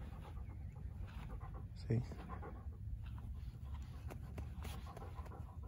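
A black retriever panting softly at close range. About two seconds in there is one short low vocal sound.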